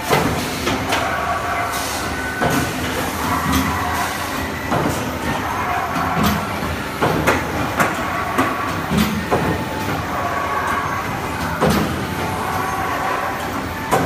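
Abrasive velcro disc punching machine at work: its punching head strikes the sheet with a sharp clunk roughly once a second over a steady machine hum.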